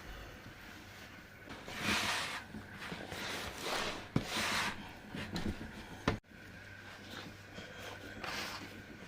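A series of rubbing swishes on a wooden surface with a couple of sharp knocks, as dough is worked by hand on a wooden board for su böreği. The sound cuts off abruptly about six seconds in and then resumes.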